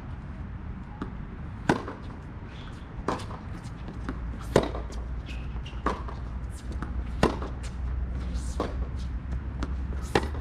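Tennis rally: a tennis ball struck back and forth by rackets and bouncing on a hard court, a sharp pop about every second and a half. The loudest pops come from the near player's backhands.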